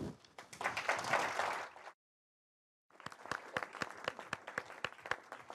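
Audience applauding. The sound cuts out to dead silence for about a second partway through, then thinner clapping resumes with individual claps heard, fading toward the end.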